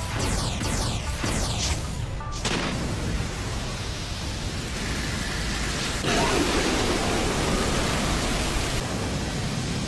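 Anime special-effect sound: a quick run of falling swooshes, then a steady rushing, hissing noise that swells louder about six seconds in.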